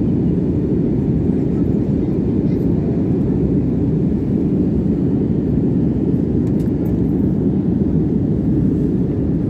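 Steady low rumble inside the cabin of an Airbus A320-family jet airliner in flight: engine and airflow noise heard from a window seat, even and unbroken throughout.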